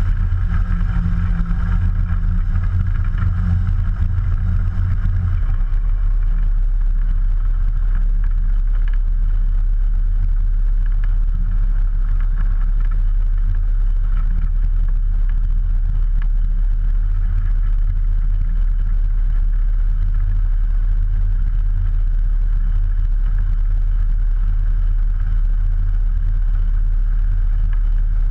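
Ikarus C42's 100 hp Rotax 912 ULS four-cylinder engine and propeller running steadily. Power eases back a little about five seconds in, and the engine then idles evenly.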